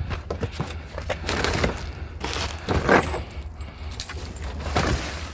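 Scrap parts being handled and pulled apart: a run of irregular knocks, clicks and rattles of hard pieces, the loudest about three seconds in.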